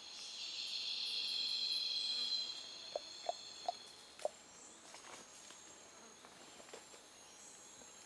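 Forest insects buzzing in a high, even trill that swells and fades out after about two and a half seconds. Four short sharp clicks follow in just over a second.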